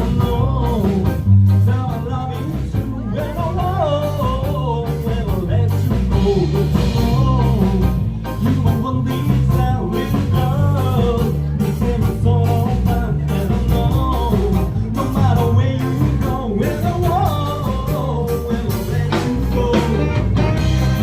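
Upbeat music with a singing voice over a steady bass-heavy beat.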